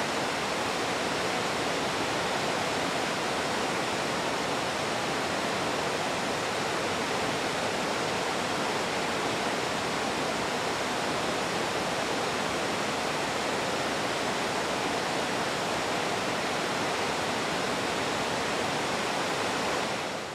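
Middle McCloud Falls, a waterfall, pouring steadily: a dense, even rush of falling water with no changes, fading out at the very end.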